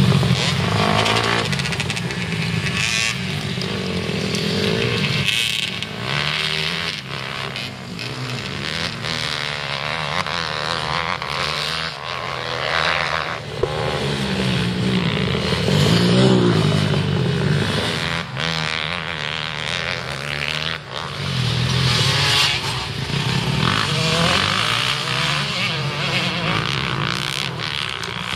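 Several dirt bike engines revving up and down as riders work up a hillside track one after another, the engine notes rising and falling with throttle and gear changes.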